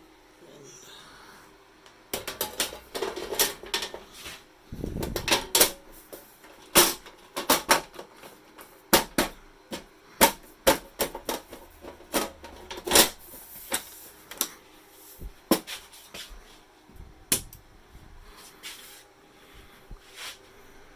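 Irregular clicks and knocks of hands handling parts inside a Dell PowerEdge R630 rack server, the sound of memory modules being reseated, over a faint steady hum.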